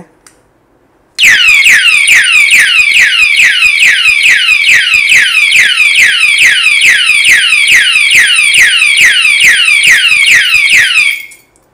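Anti-theft alarm padlock's built-in siren, rated 110 dB, set off by tampering with the lock: a very loud repeating wail of falling sweeps, about four a second. It starts about a second in and cuts off near the end.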